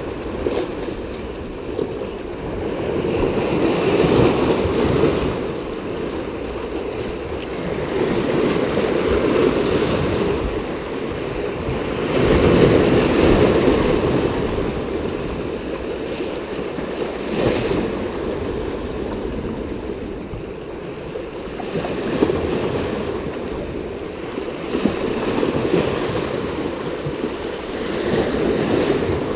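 Sea waves washing ashore in slow surges every few seconds, with wind buffeting the microphone.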